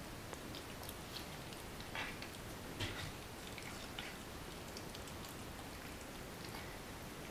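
A cat chewing and licking melon: faint, irregular clicks and smacks, a few a second at most, with a couple of louder ones midway.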